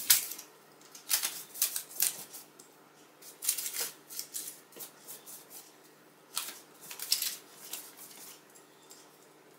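Pastry brush spreading egg wash over raw puff pastry: short, irregular brushing strokes, some in quick runs of two or three, with pauses between.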